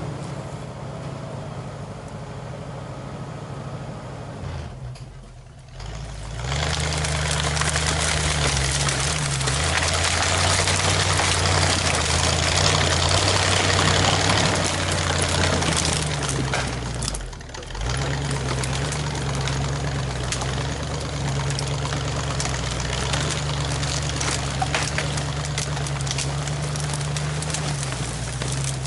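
Paylogger skidder's engine running steadily, much louder from about six seconds in, with brief drops about five seconds in and again past halfway.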